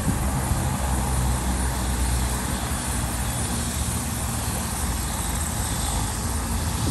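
Medical helicopter idling on the ground, its engine and rotor making a steady hum.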